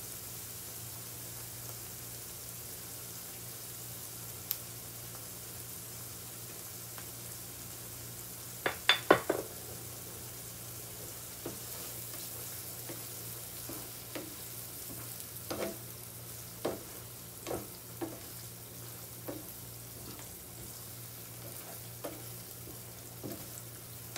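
Onions and tomatoes with oyster sauce sizzling steadily in a frying pan while a slotted spatula stirs them. A quick run of about four knocks of the spatula against the pan comes about nine seconds in and is the loudest sound, with more single knocks scattered through the second half.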